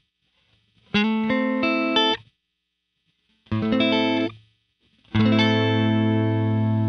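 Clean electric guitar played through the Empress Reverb pedal's gated reverb: two short phrases of chords, each cut off abruptly to silence as the gate mutes the reverb tail, then a third chord about five seconds in that rings on.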